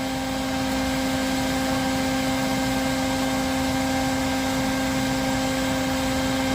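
A steady, even droning hum at one constant pitch, with no breaks or changes.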